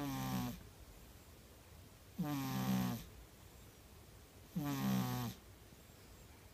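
Persian cat snoring low in her sleep: three snores, each under a second long, roughly two and a half seconds apart.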